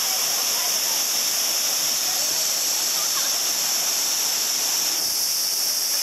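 Waterfall pouring into its plunge pool: a steady rush of falling water, with faint voices of swimmers.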